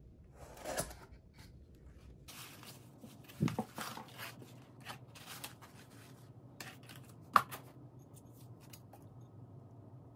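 A cardboard mailer box being opened by hand: the lid slid and lifted with cardboard rustling and scraping, and a stoneware plate lifted out. A low thud comes about three and a half seconds in and a sharp knock a little after seven seconds, the loudest sound.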